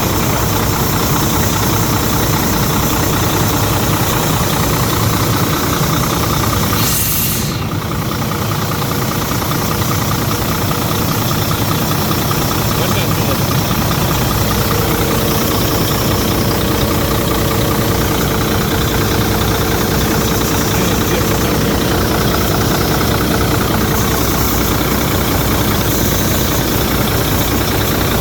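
Freshly rebuilt Volvo D13 inline-six diesel engine idling as it warms up. A brief hiss comes about seven seconds in, and a steady whine joins about halfway through.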